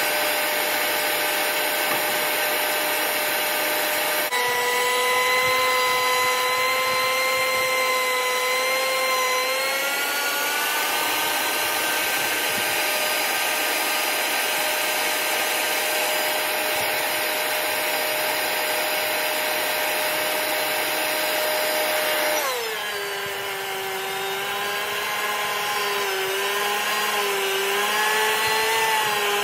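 Benchtop thickness planer running and planing a square timber post: a steady high motor whine over the noise of the cutterhead. The pitch drops about four seconds in, rises again around ten seconds, and drops lower and wavers near the end as the motor takes the load of the cut.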